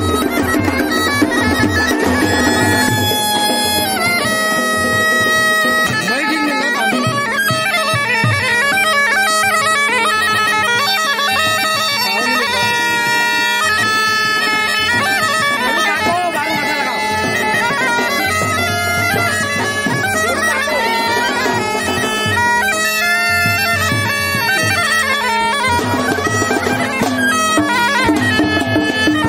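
Kumaoni masak been (bagpipe) playing a folk tune (dhun): a steady drone held under a melody that moves from note to note.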